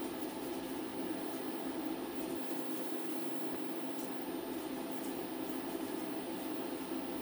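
Steady background machine hum with a faint hiss, unchanging throughout, with a couple of faint ticks.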